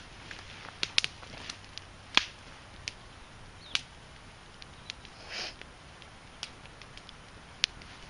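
Split Douglas fir kindling burning in an open fire, the wood still slightly wet and green: sparse sharp crackling pops a second or more apart, the loudest about two seconds in, and a brief hiss a little past the middle.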